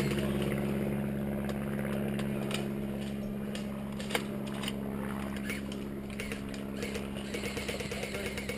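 Steady low mechanical hum with several fixed pitches, overlaid by scattered light snaps and rustles, with a quick run of small ticks near the end.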